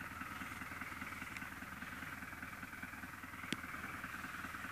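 Faint, steady background rumble and hiss, with one short click about three and a half seconds in.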